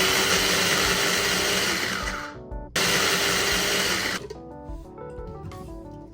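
Electric blender grinding a paste of shallots, garlic and ginger in two runs: on until about two and a half seconds in, a short pause, then on again for about a second and a half before it stops.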